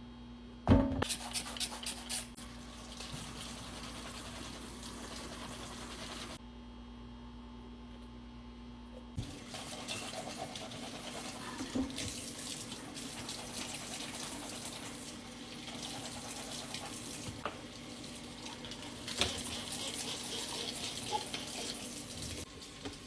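Water running from a tap into a sink, with knocks and clatters as the dog's toys are handled and washed; a sharp knock about a second in.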